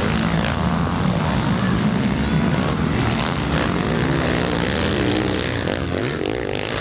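Motocross bike engines revving hard as the bikes race past, pitch rising and falling with the throttle and gear changes.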